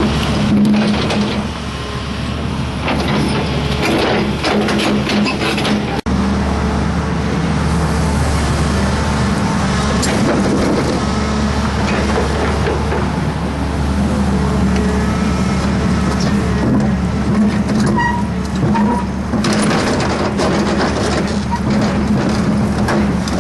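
Volvo EC210B excavator's diesel engine running steadily, with scattered metal clanks and knocks over the steady drone, as the machine works to throw its own track off.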